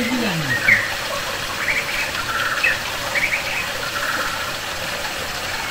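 A songbird calling again and again in short chirps and quick trills, over the steady rush of spring water flowing into a stone tank.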